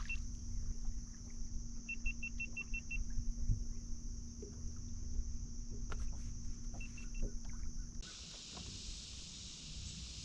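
Open-boat ambience with wind rumbling on the microphone and a steady electric hum. A run of about seven short, quick high beeps comes about two seconds in and three more near seven seconds, like boat electronics signalling. About eight seconds in, the hum stops and a higher, steady hiss takes over.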